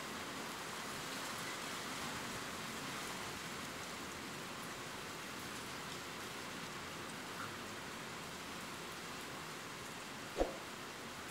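Steady rain falling, an even hiss, with a single dull thump near the end.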